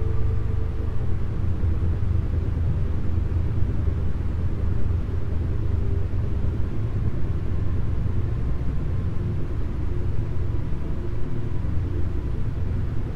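Isochronic tone for brainwave entrainment: a low drone pulsed rapidly on and off, under soft sustained synthesizer chords.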